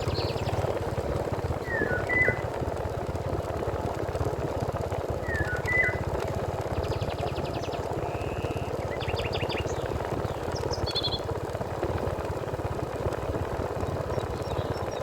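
Steady rush of flowing river water, with birds calling over it: one repeats a short two-note call twice in the first half, and others chirp and trill higher in the middle.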